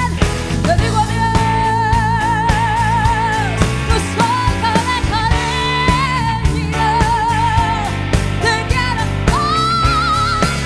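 A woman sings long held notes with wide vibrato over a live rock band with drums and bass guitar, in a rock arrangement of a bolero. Her line climbs to a higher held note near the end.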